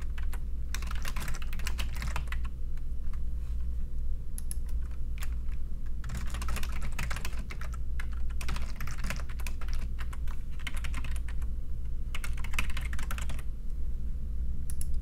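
Computer keyboard typing in bursts of quick keystrokes with short pauses between them, as text is entered into form fields, over a steady low hum.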